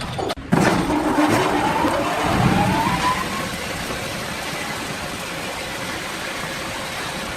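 Sawmill machine motor spinning up, its pitch rising steadily over about three seconds, then running on at speed.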